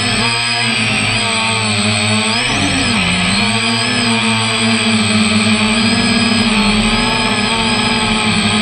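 DJI F330 quadcopter's brushless motors and propellers whining, heard up close from a camera on the frame. The pitch dips and rises with throttle changes in the first few seconds, then holds fairly steady.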